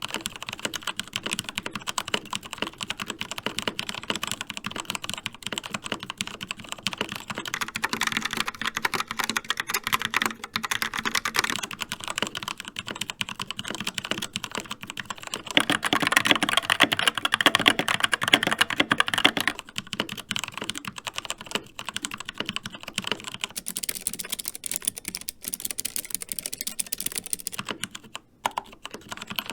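Fast typing on four mechanical keyboards in turn, about eight seconds each. First a Keychron K4 with Gateron Brown switches, then a Logitech Pop Keys with TTC Brown switches from about 8 s, a Skyloong GK61 with Gateron Optical Brown switches from about 15 s, and a Keychron K3 with Keychron Optical Blue switches from about 23 s. The GK61 stretch is the loudest.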